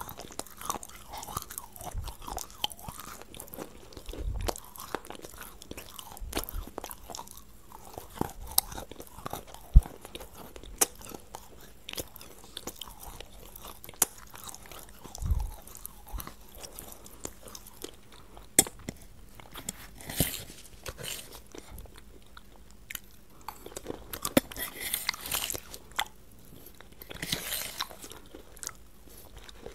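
Close-miked chewing of an ice cream dessert with crunchy dark pieces, with frequent short, sharp crunches and mouth clicks.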